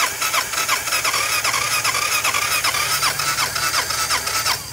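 Honda 250 scooter engine being cranked over by its electric starter. The starter whine dips on each compression stroke, about three or four times a second, and the engine does not catch before the cranking cuts off suddenly at the end. The engine has dish soap in place of oil and paint thinner poured into its intake.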